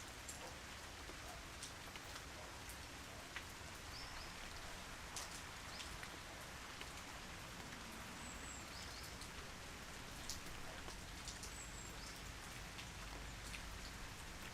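Steady, calm rain: an even hiss of rainfall, with individual drops ticking sharply on a hard surface here and there.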